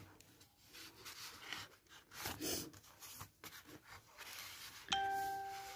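Scrapbooking paper and sticker sheets being handled and slid over one another, a soft intermittent rustling. Near the end a single clear ding sounds suddenly and rings for about a second.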